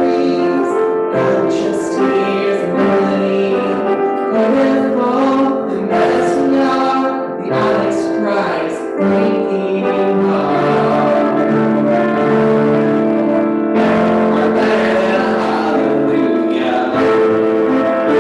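Music with long held notes moving from chord to chord.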